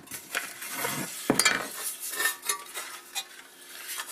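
Lawnmower recoil starter being wound by hand, its pulley turned in the housing against the starter spring: scattered metal clicks, clinks and scraping, with one louder clack about a second and a half in. The spring is being wound up tight before the new pull rope is fitted.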